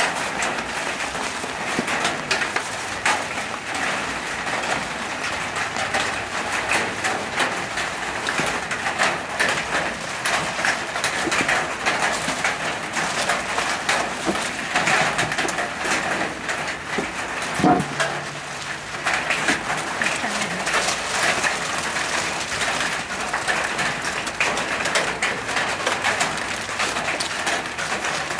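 Aluminium foil crinkling and rustling as hands pack meat into it and fold it over, with birds calling in the background.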